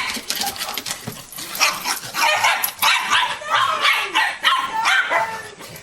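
Dog barking over and over in quick, short barks.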